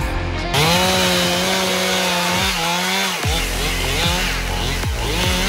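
Gas chainsaw starts abruptly about half a second in, running at full throttle as it cuts through a fallen tree trunk. About three seconds in its pitch drops sharply, then rises and falls several times as the throttle is worked.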